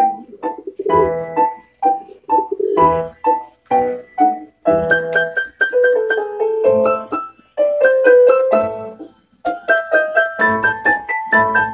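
Piano music with struck notes and chords in a rhythmic melody.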